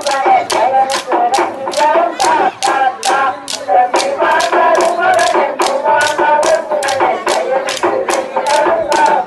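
A group singing a Tamil folk song together, kept in time by sharp, evenly spaced beats about two to three a second, of the kind struck in kolattam or kummi dancing.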